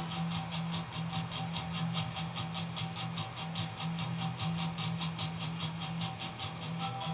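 Music playing for a synchronized Christmas light show: a fast, even high ticking rhythm over a low steady hum.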